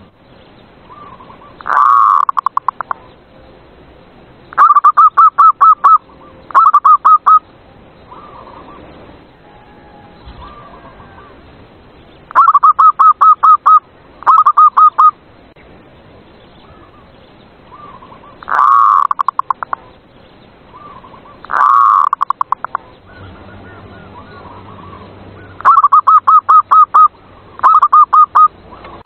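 Zebra dove (perkutut) cooing: phrases of quick, evenly spaced staccato coos, a second or so each, recurring every few seconds. Some phrases open with a longer note that bends in pitch.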